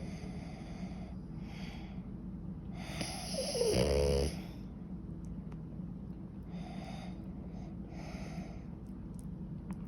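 French bulldog snoring loudly in its sleep, a rough snore every second or so. The longest and loudest snore, about three seconds in, turns into a wavering pitched snort.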